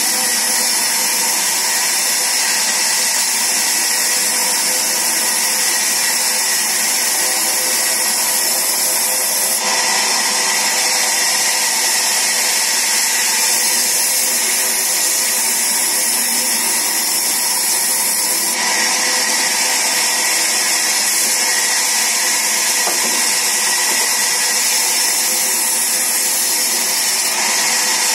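Sawmill band saw running steadily, its blade ripping wooden planks as they are fed along the table; a continuous loud machine noise with a high hiss.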